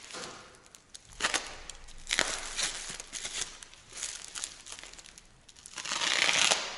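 Bubble-wrap packaging crinkling and rustling as it is cut open with a blade and pulled apart, in several separate bursts, the loudest and longest near the end.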